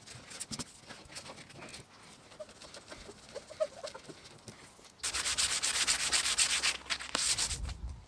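Sanding on the canoe hull: quiet scraping and light knocks at first, then a louder stretch of fast, rhythmic rubbing for about three seconds near the end.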